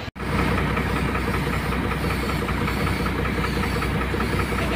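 Air compressor running steadily for a paint spray gun: a constant low mechanical hum with a rapid, even chugging.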